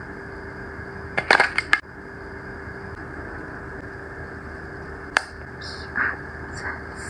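Metal makeup compacts being handled: a quick run of sharp clicks and clinks about a second in, a single sharp click around five seconds in, then a few softer taps, over a steady faint hum.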